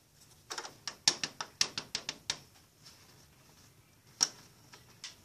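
Light plastic clicks and taps in a quick, uneven run, then one more a little after four seconds in: a plastic fashion doll being handled and walked around a toy dollhouse.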